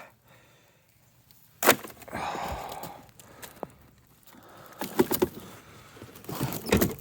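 Handling noises as a cover is pulled off a zero-turn mower's seat: one sharp knock about two seconds in, a stretch of rustling, then a few more clicks and knocks near the end.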